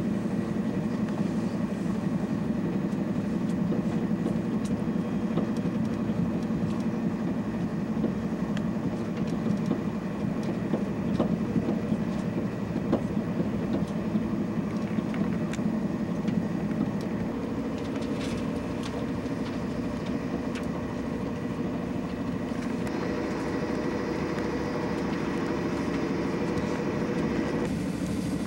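Steady running noise of a moving passenger train heard from inside the carriage, a continuous rumble with a faint hum, changing in tone about 23 seconds in.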